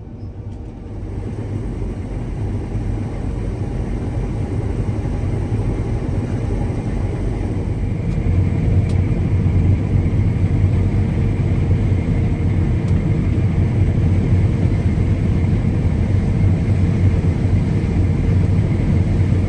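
Combine harvester engine running, a steady low rumble with a constant whine above it that grows louder over the first eight seconds or so and then holds.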